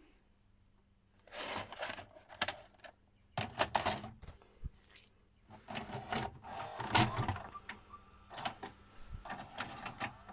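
NEC VN-201 VHS video player's mechanism clicking and clunking in several short bursts of mechanical clatter.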